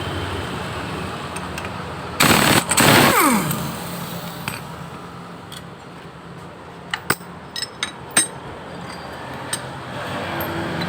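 A power impact wrench fires a loud burst of hammering about two seconds in, then spins down with a falling whine. A few sharp metallic clicks of tools and loosened parts follow near the middle to end.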